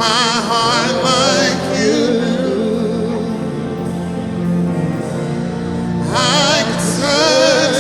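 Live gospel worship music: a singer's long, wavering held notes over sustained keyboard chords, the voice dropping back in the middle and returning near the end.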